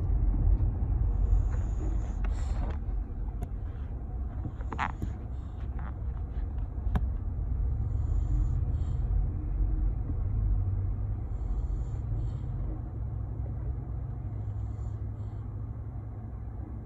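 Steady low rumble of a car on the move, heard from inside the cabin. Faint hissy sounds come and go about every three seconds, with a few light clicks in the first half.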